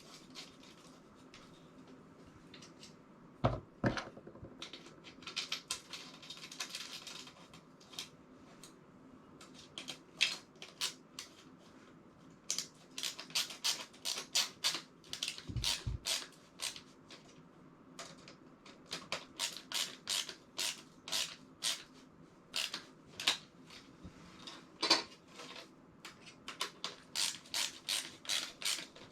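Runs of rapid, sharp clicks, several a second, with a few heavier knocks, from hand work on the shuttle's small plastic and metal parts.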